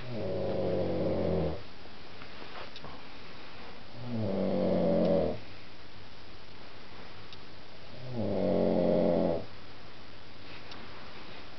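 A man snoring in his sleep: three snores, each about a second and a half long, coming about every four seconds.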